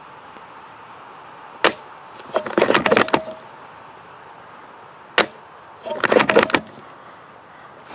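An L96 AW bolt-action spring airsoft sniper rifle fired twice, about three and a half seconds apart. Each shot is a single sharp crack, followed a moment later by a quick rattle of clicks as the bolt is worked to cock the spring and chamber the next BB.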